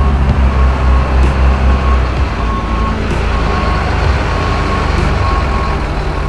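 Diesel engine of a boom crane truck running as it backs up, its reversing alarm sounding a steady train of short, single-pitch beeps about one and a half a second over a deep engine rumble.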